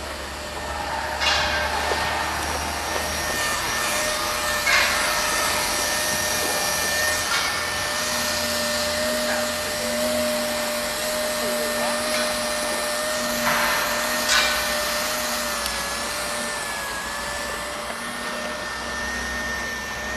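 Hot-air plastic membrane welding machine running steadily with a blower-like noise and a steady whine, with a few short knocks along the way.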